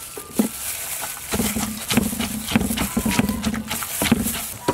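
Wooden pestle pounding garlic, shallots, chilies and peanuts in a clay mortar: a run of dull knocks at an uneven pace, with a spoon scraping the mix. A low droning sound runs underneath from about a second and a half in until near the end.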